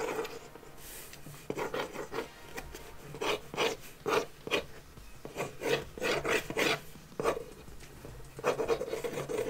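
Mechanical pencil scratching across the lid of a cardboard box in short, quick sketching strokes. It is faint for about the first second and a half, then the strokes come in an irregular run.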